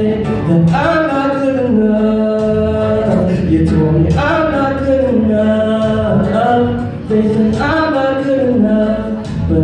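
A solo singer singing into a microphone, holding long notes with rising slides into each phrase.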